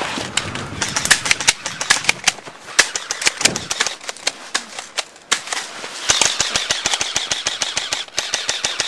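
Airsoft guns firing in an exchange: scattered shots and short bursts, then about six seconds in a long run of rapid full-auto fire at about ten shots a second that stops near the end.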